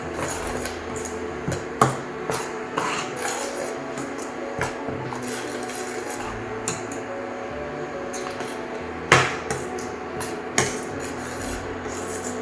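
A spoon stirring tomato puree and spices in a kadai, scraping against the pan with scattered clanks. The loudest knock comes about nine seconds in, and another about a second and a half later.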